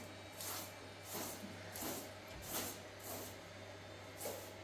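Short straw hand broom sweeping a carpet: a brisk swish with each stroke, about one and a half strokes a second, over a faint steady low hum.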